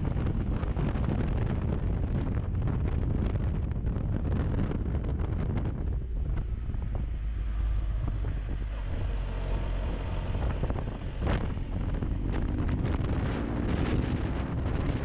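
Wind buffeting the microphone of a moving motorcycle, with the motorcycle's engine running underneath.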